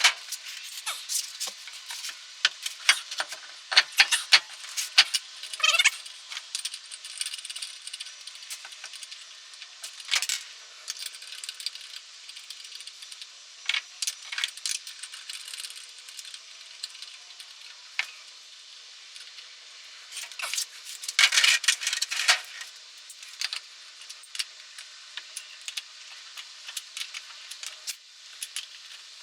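Scattered metal clinks, clanks and rattles of lug nuts and hand tools being handled as a truck's wheel is put back on, with a couple of short runs of rapid clicking.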